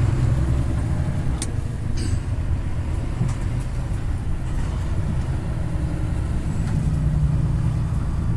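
Heavy truck's diesel engine and drivetrain running at low speed, heard from inside the cab as a steady low drone, with a couple of faint clicks about a second and a half and two seconds in.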